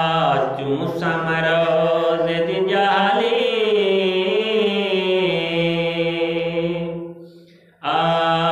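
A man's voice chanting a naat, a devotional song in praise of the Prophet, in Saraiki, into a handheld microphone. He holds long, wavering notes, trails off about seven seconds in, pauses briefly for breath, and starts the next line near the end.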